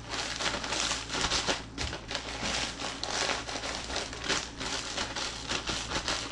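Plastic zip-top bag crinkling and rustling in a continuous, irregular crackle as potato chips inside are crushed by hand and mixed with breadcrumbs and dried herbs.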